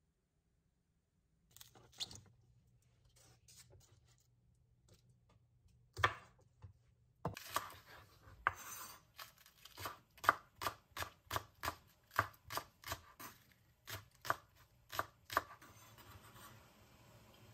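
Knife chopping on a cutting board: a few scattered knocks, then a steady run of even strokes, about two to three a second, that stops shortly before the end.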